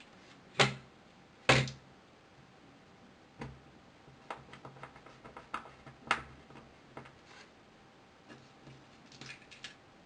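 Small tools and smartphone parts clicking and tapping as they are handled on a repair bench. Two sharp, louder clicks come about half a second and a second and a half in, followed by scattered lighter ticks.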